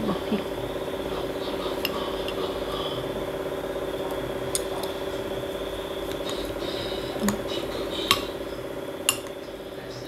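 A metal spoon and chopsticks clinking against a glass bowl as noodle soup is stirred, with a few sharp clinks, the loudest near the end. A steady hum runs underneath.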